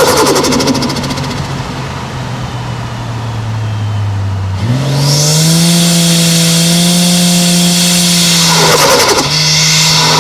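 Turbocharged 1JZ-GTE 2.5-litre inline-six running under way, with a fluttering burst of turbo flutter at the start as the throttle closes, after which the engine note falls. About four and a half seconds in the revs climb back and hold steady, and a second flutter comes just before the end.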